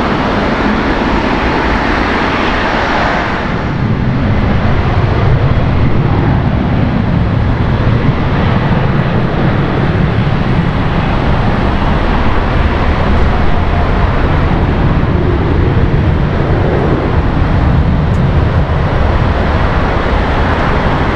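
Jet engines of a departing Airbus A380-841, four Rolls-Royce Trent 970s, running at takeoff power with a broad hissing roar for the first few seconds. After about three and a half seconds this gives way to a steadier, deeper jet rumble with less hiss.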